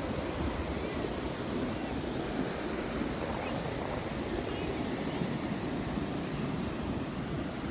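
Rough surf breaking and washing on the beach, a steady rushing noise, with some wind on the microphone.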